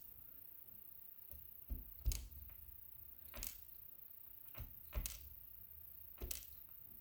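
Small metal parts of a disassembled disc-detainer lock clicking and tapping as they are taken out and set down, about seven light separate clicks spread unevenly, the sharpest about two seconds in.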